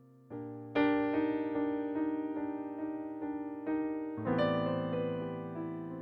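Solo digital keyboard with a piano sound, playing sustained chords. A soft chord enters just after the previous one has died away, a louder chord rings out just after it, and the harmony changes a little past four seconds in.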